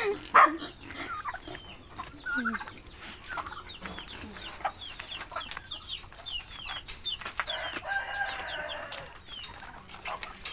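Chickens clucking and chirping in short calls, with a rooster crowing once, a long call, about three-quarters of the way through. A sharp knock sounds near the start.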